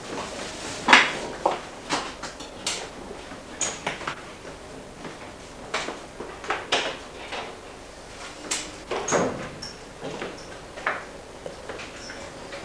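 Irregular knocks, clunks and rattles inside an old single-deck electric train carriage, with a few brief high squeaks, as passengers move about the doorway.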